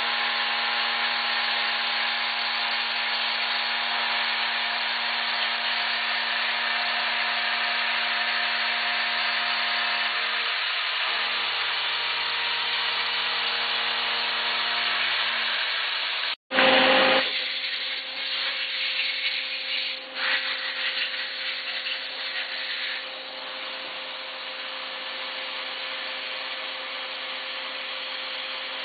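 2001 Mazak VTC250-50 CNC vertical mill running, a steady machine noise with several steady tones. Just past halfway it breaks off abruptly, comes back with a brief loud surge, and settles into a quieter steady running with one clear tone.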